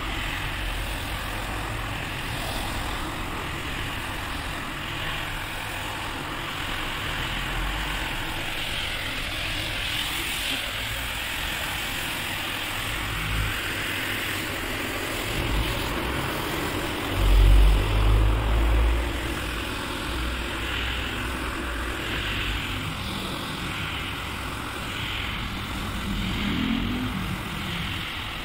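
Single-disc rotary scrubber running steadily, its brush scrubbing a rug through soapy shampoo lather, giving a continuous motor hum with a wet swishing hiss. A few loud low thumps come about two-thirds of the way through.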